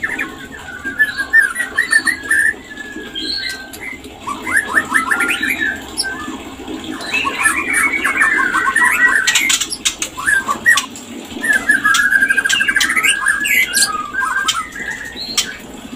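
White-rumped shama (murai batu) calling: bursts of rapid chattering notes and short phrases, one a fast even rattle about three-quarters of the way through, with a few sharp clicks in the middle. These are the excited calls of a shama in breeding condition.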